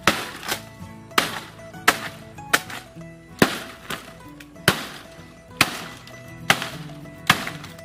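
A heavy chopping blade hacking into dry palm fronds: about ten sharp crisp strikes at an uneven pace, under steady background music.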